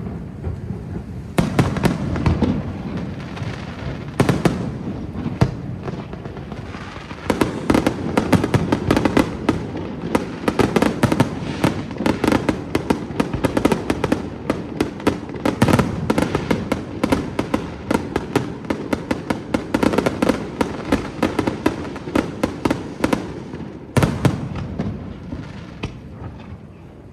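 Fireworks display: sharp bangs and crackling reports in quick succession. Scattered at first, they thicken into a dense, rapid barrage a few seconds in and thin out near the end.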